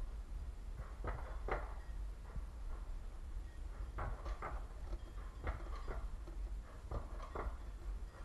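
Alpine coaster sled running down its metal rail: a steady low rumble with sharp clacks, mostly in pairs about half a second apart.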